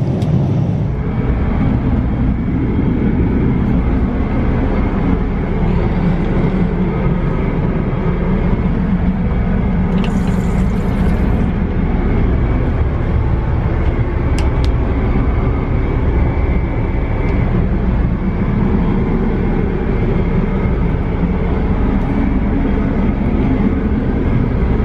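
Steady, loud cabin noise of a Boeing 777-300ER in cruise: a deep, even rumble of engines and airflow. A short hiss comes about ten seconds in, and two sharp clicks follow a few seconds later.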